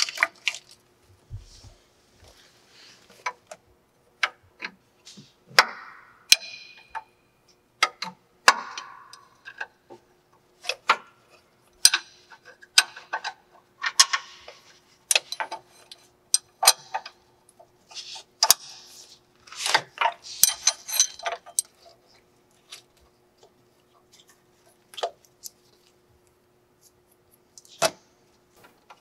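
Irregular metallic clinks, clicks and knocks of hand tools and hardware on a lathe's motor mounting plate, with a few short rattles, as its nuts and bolts are worked loose.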